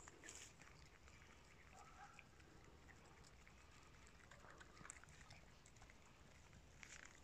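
Near silence: faint background hiss with a few soft scattered ticks and rustles.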